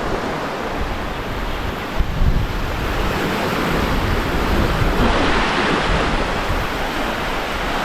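Sea waves washing onto a beach, with a wave surging up about five seconds in, and wind rumbling on the microphone.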